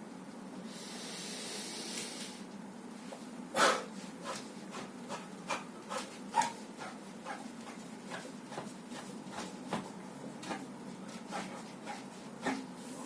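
Spine joints cracking as a person self-adjusts their back: one loud crack about three and a half seconds in, then a string of smaller irregular clicks and pops. A short hiss comes near the start, over a steady low hum.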